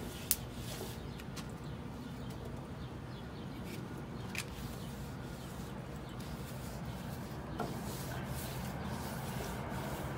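Metal tongs rubbing an oiled paper towel over hot gas-grill grates, with a few light clicks and scrapes. Under it runs a steady low rumble that swells toward the end as a train approaches.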